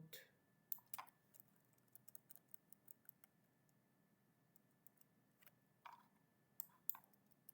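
Faint, scattered clicks of computer keyboard keys and mouse buttons, a few spread through and more of them near the end.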